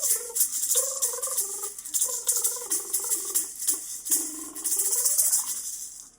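A woman's wordless vocal improvisation, sung tones gliding up and down, over a bright, hissing rattle like a shaker. Both cut off suddenly at the end.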